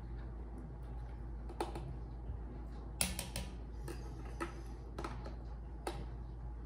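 A small utensil scooping minced garlic out of a jar, giving a scattering of short sharp clicks and taps against the jar and the pot, the loudest about halfway through, over a low steady hum.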